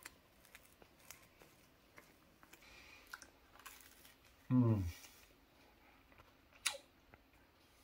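Faint scraping and small clicks of a table knife spreading soft butter across a slice of crusty bread. About halfway through a brief low hum of the voice falls in pitch, and near the end there is one sharp click.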